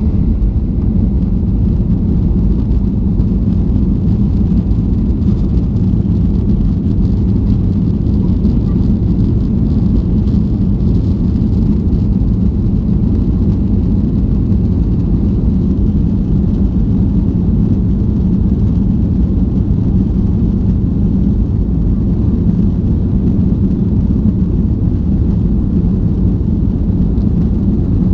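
Boeing 737-800's CFM56 jet engines heard from inside the cabin during takeoff: a loud, steady low rumble.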